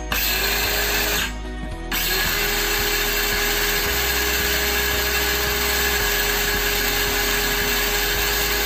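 Ingco 20V cordless circular saw with a new 6-inch 40-tooth Ossel blade spinning free with no load on a test run. It runs for about a second, stops briefly, then starts again and runs steadily with an even whine.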